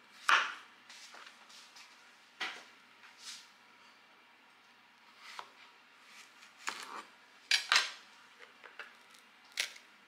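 Chef's knife cutting through zucchini on a plastic cutting board. The blade knocks against the board about seven times at irregular intervals, loudest about a third of a second in and near eight seconds in, with quieter handling of the pieces between.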